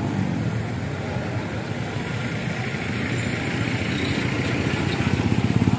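Vehicle engine running close by on the street, a fast steady pulsing that grows louder near the end as it comes closer.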